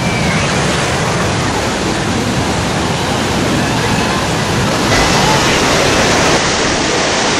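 T-33 jet trainer's turbojet engine heard from the ground as a steady, loud rushing roar while it climbs away, getting a little brighter about five seconds in.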